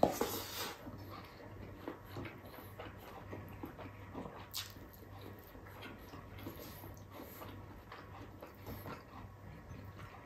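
A man chewing a handful of rice and pork sinigang eaten by hand, with small irregular wet smacks and clicks of the mouth. A faint steady low hum sits underneath.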